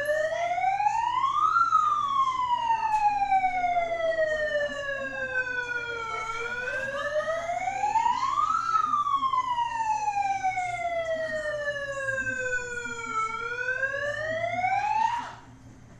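Wailing siren, its pitch rising for about two seconds and falling for about four or five, in slow repeated cycles, then cutting off suddenly near the end. It is the alarm signalling an earthquake drill.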